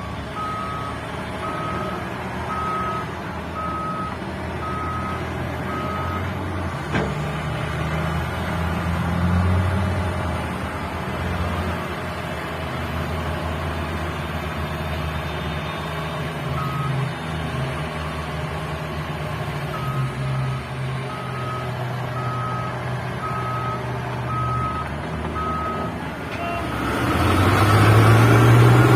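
Heavy mining machines' diesel engines running steadily while a reversing alarm beeps at an even pace, about one beep a second. The beeping runs for several seconds at the start and again later. Near the end the engine noise grows much louder.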